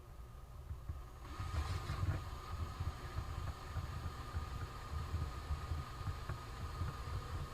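A small motor running steadily with a whine and a low rumble, winding solder onto a homemade spool. The whine grows louder about a second in.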